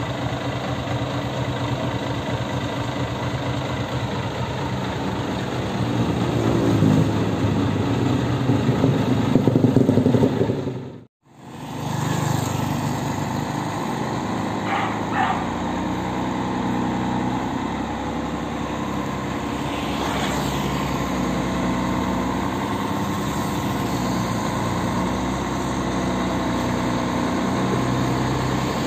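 Scania 113M 320 truck's 11-litre straight-six diesel running under load, getting louder from about six to ten seconds in. After a short break it is heard from farther off, with two brief high squeaks about fifteen seconds in.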